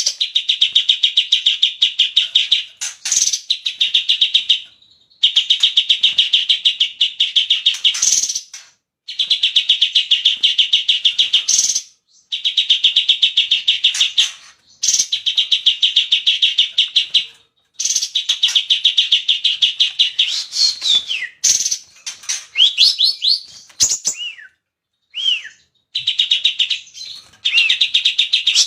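Cucak cungkok song: long, very fast rattling trills about three to four seconds each, repeated with short pauses. Around two-thirds of the way in, a few falling whistled notes break the pattern.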